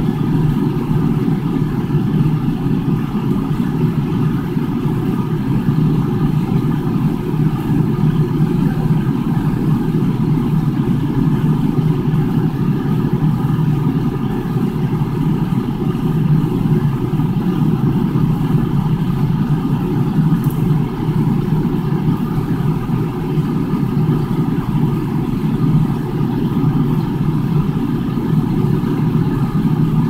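Refrigerator-freezer running, its fan and compressor making a steady hum heard from inside the freezer compartment.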